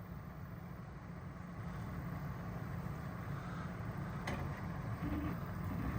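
2004 GMC Sierra 1500's 5.3-litre V8 idling with a steady low rumble, and a single sharp click about four seconds in.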